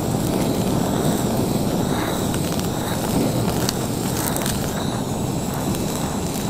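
Handheld gas kitchen torch running steadily with an open flame, searing the skin of raw fish fillets.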